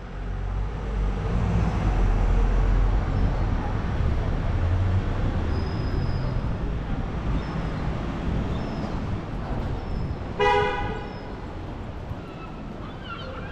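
Low rumble of street traffic, loudest over the first several seconds as vehicles pass. About ten seconds in, a vehicle horn gives one short toot, and the traffic is quieter after it.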